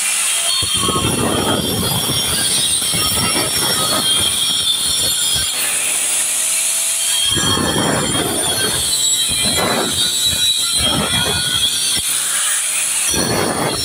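Electric angle grinder cutting masonry in a dusty job: a steady high-pitched screech, with rough grinding spells as the disc bites in, a long one for the first few seconds and several shorter ones later.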